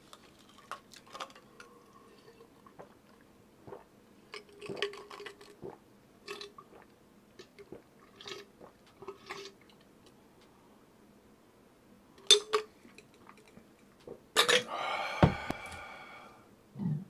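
Close-up eating sounds: chewing and mouth smacks with scattered small clicks. A sharp louder click comes about three-quarters of the way through, then a longer, louder mouth sound near the end.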